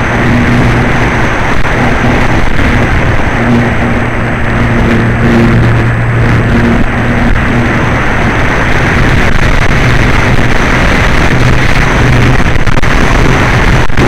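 Loud, steady rush of wind across the onboard camera microphone of a Flyzone Calypso electric RC glider in flight in strong wind, with a low hum from its motor and propeller underneath that comes and goes.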